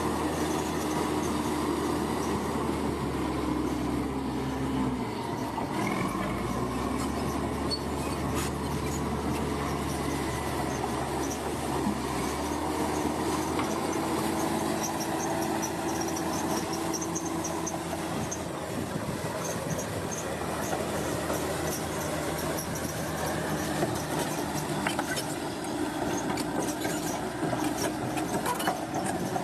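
Bulldozer's diesel engine running steadily, its note shifting about five seconds in, with the high squeal and clank of steel tracks.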